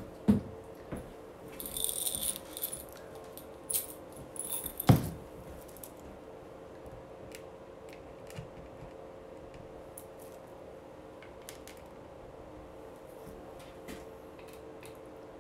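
Small fish-tank rocks rattling and clinking in a glass jar as it is handled, with a knock near the start and a louder knock about five seconds in as the jar meets the table. After that only faint, occasional light ticks.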